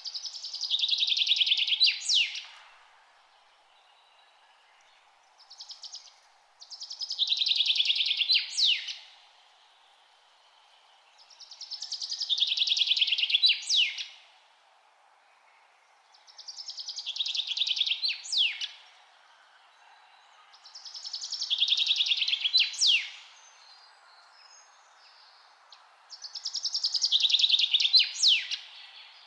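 A songbird repeating the same short, rapid trilled song six times, about every five seconds. Each phrase ends in a few sharp, quick high notes.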